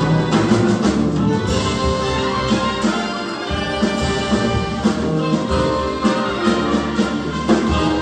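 Big band jazz ensemble of saxophones, trombones, trumpets, piano, bass, guitar and drum kit playing live, with full sustained horn chords over a steady drum beat, heard from the audience seats of a theater.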